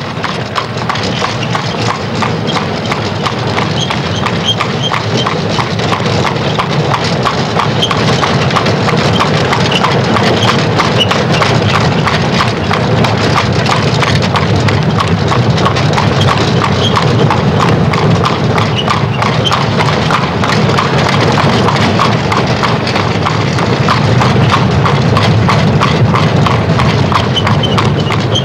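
Horse-drawn wooden cart on the move: hooves clip-clopping at a steady pace over the continuous rattle and low rumble of its spoked wheels.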